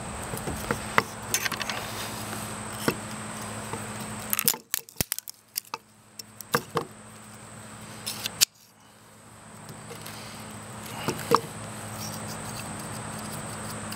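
Tongue-and-groove pliers clamped on a plastic tube's welded end cap, clicking and clanking in scattered knocks as they are worked and other tools are handled, over a steady faint hum.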